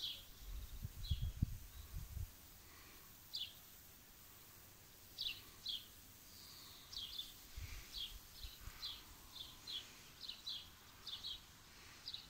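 Small birds chirping: short high notes, each falling quickly in pitch, repeating every half second or so and coming more often in the second half. A few low rumbles around one to two seconds in and again near eight seconds.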